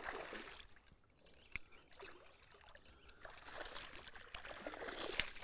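Hooked fish splashing and thrashing at the creek's surface while being played on a rod, faint at first and growing louder from about three seconds in, with one sharp click about a second and a half in.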